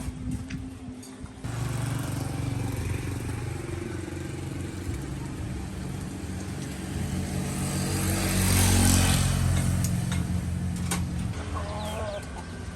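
A motor vehicle engine running, starting suddenly about a second and a half in, growing louder to a peak around nine seconds in, then easing off, like a vehicle passing close by.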